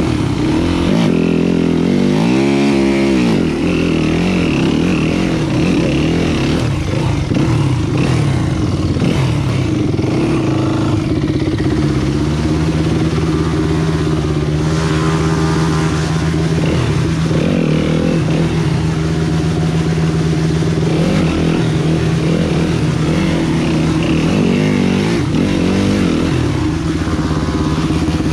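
Dirt bike engine running on a trail ride, revs rising and falling with the throttle: a quick rev up and down about two seconds in, a steadier stretch in the middle, then more throttle changes near the end.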